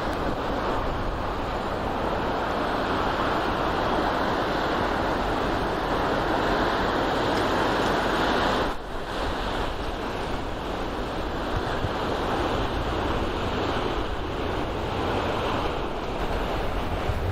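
Steady rushing of water and wind as a container ship passes close by, its bow wave breaking along the hull, with a faint low engine hum beneath. The rushing drops off briefly about nine seconds in.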